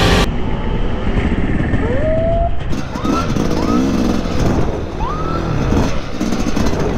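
Dirt bike engine running under a riding rider, revving up several times in short rising sweeps.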